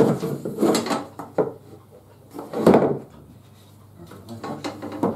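A metal framing square knocked and slid against the sides and base of a clamped pine cabinet as it is set in place to check the carcass for square: a series of knocks and scrapes, the loudest and longest about two and a half seconds in.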